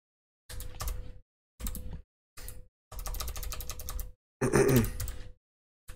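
Computer keyboard typing in quick bursts of keystrokes separated by short pauses, as a terminal command is typed out. About four and a half seconds in, a brief wordless voice sound, the loudest moment, rises over the keys.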